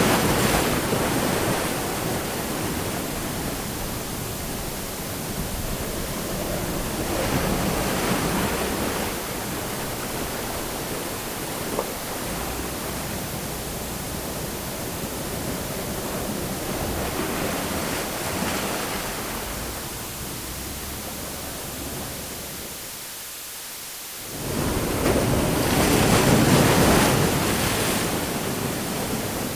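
Waves washing in on a shore, each one swelling and falling away every several seconds over a steady hiss of water; a short lull comes near the end, then the loudest wave.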